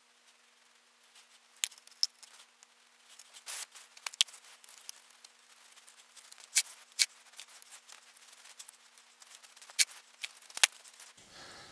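Scattered, irregular light clicks and scratchy taps from hands and tools working a sand-casting mold, with a faint steady hum underneath.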